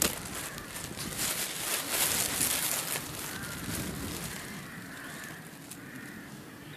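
Elder leaves and stems rustling and crackling as the bush is pushed aside and a flower head is grabbed by hand, busiest in the first three seconds and then fading.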